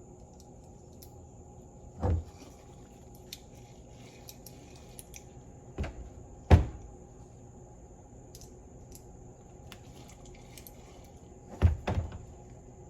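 Steering box parts being handled on a workbench: about five dull knocks, the loudest just after the middle, with faint light clicks between them.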